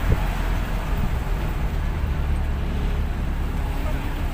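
A van's engine and road noise, heard from inside the cabin while driving: a steady low rumble with tyre and road hiss, and one short knock right at the start.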